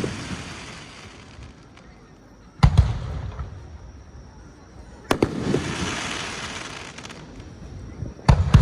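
Aerial firework shells bursting: a sharp double bang about two and a half seconds in, another bang about five seconds in followed by a couple of seconds of hissing crackle, and a further bang near the end.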